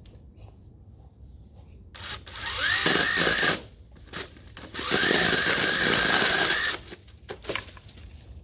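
Makita brushless cordless pole chainsaw run twice: the electric motor spins up with a rising whine and holds at speed, first for about a second and a half, then for about two seconds, stopping abruptly each time.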